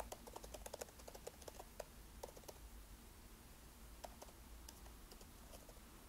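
Faint computer keyboard typing: a quick run of keystrokes over the first two and a half seconds, then a few scattered taps.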